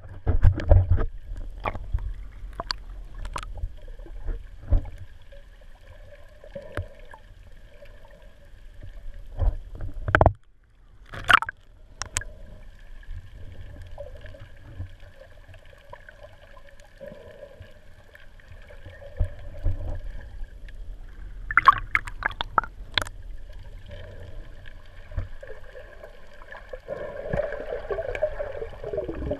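Underwater sound picked up by a submerged camera: a low rumble of moving water with scattered sharp clicks and knocks, and a faint steady hum that comes and goes.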